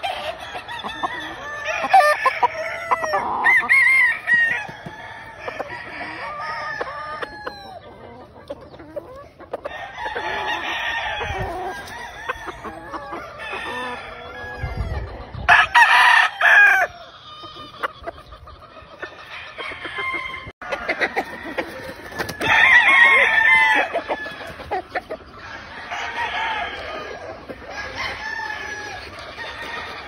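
Black gamefowl roosters crowing several times, with the loudest crows about halfway through and again later, over clucking from the hens around them.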